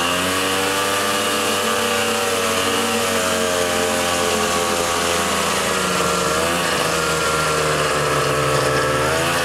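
Snowmobile engine running while riding along a trail, its pitch mostly steady with a brief dip and then a rise near the end as the throttle changes, over a steady hiss.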